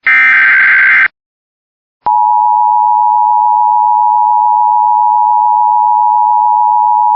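Emergency Alert System audio. A SAME header data burst, a dense electronic warble about a second long, is followed by about a second of silence. Then the steady two-tone EAS attention signal starts about two seconds in and holds at one pitch.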